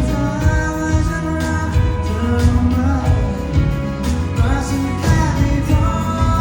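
Thai indie pop band playing live, recorded from the crowd: a sung melody over a steady drum beat and bass.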